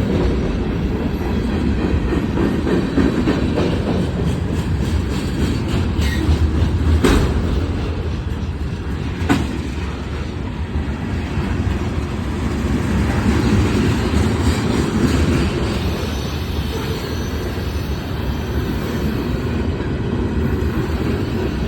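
Train cars rolling past on the track, making a steady, loud rumble with two sharp knocks about seven and nine seconds in.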